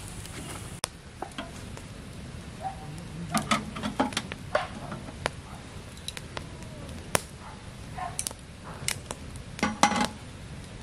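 Wood campfire crackling, with sharp pops every second or so. A louder clatter comes near the end.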